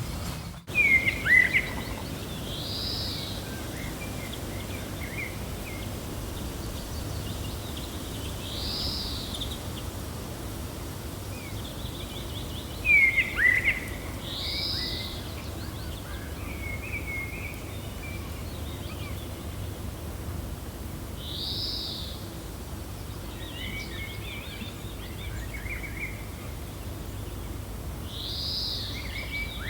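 Gentle wind with birds calling over it: a high arched call that repeats about every six seconds, and two louder, sharp falling chirps, one about a second in and one near the middle, with softer twittering between.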